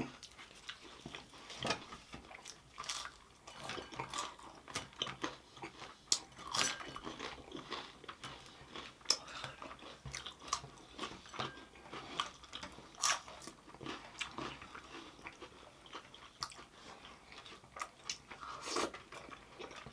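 Close eating sounds: chewing and biting food, with irregular short crunches and small clicks.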